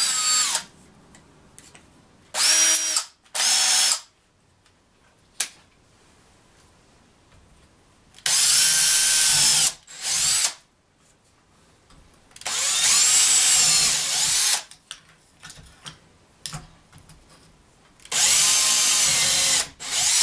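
Porter-Cable cordless drill running in seven short bursts, the longest about two seconds, its motor whine rising and falling in pitch, as it drills into the vacuum base of a vise to anchor it to a wooden board. Small clicks and knocks sound between the runs.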